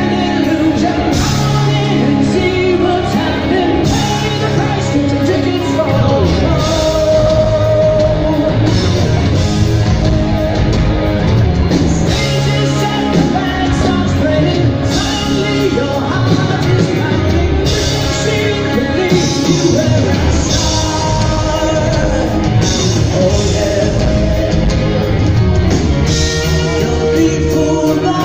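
Live rock band playing with a lead vocal: electric guitars, bass, a large drum kit and keyboards, heard through the soundboard mix.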